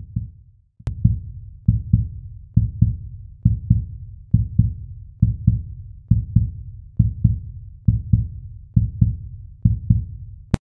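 Outro soundtrack of a deep, heartbeat-like double thump repeating about once every second, cut off suddenly with a click near the end.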